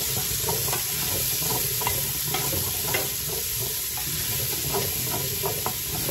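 Diced bell pepper, onion and garlic sizzling in a hot metal pot while a wooden spoon stirs and scrapes the bottom to lift the fond, with irregular light knocks of the spoon against the pot.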